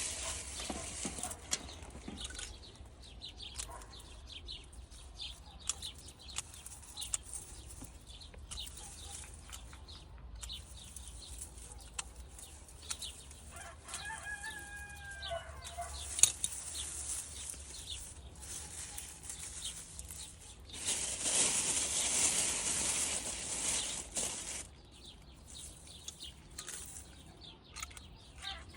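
A rooster crows once, about halfway through. Throughout, there is close rustling and crackling of leafy stems being handled, with a louder stretch of rustling near the end.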